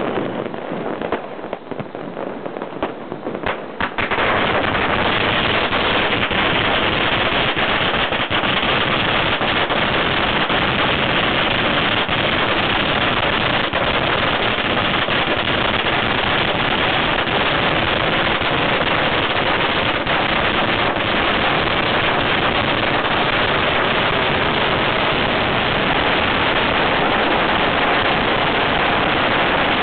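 A string of firecrackers going off: scattered sharp bangs for the first few seconds, then from about four seconds in a dense, continuous rattle of rapid bangs at a steady loud level.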